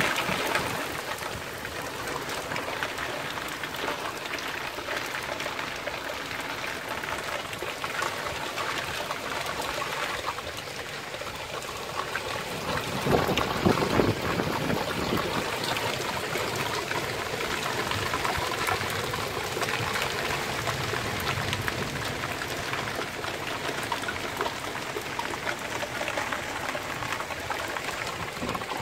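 Heavy rain falling, a steady dense hiss of many drops, with a brief louder swell about halfway through.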